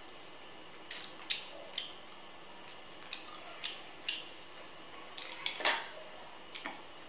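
Cooked crab shell cracking and snapping as it is broken apart by hand: irregular sharp clicks, with a louder cluster of cracks about five and a half seconds in.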